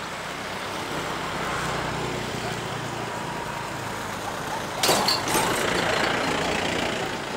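Steady background noise with a low hum that swells and fades, and a sudden loud hiss about five seconds in that dies away over a second or so. A couple of faint, short, high bird notes.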